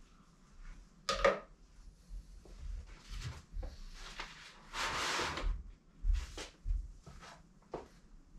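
A person handling a large sheet of paper on a table and moving about it: a sharp knock about a second in, a few soft thuds like footsteps, and a rustle of paper lasting about a second around the middle.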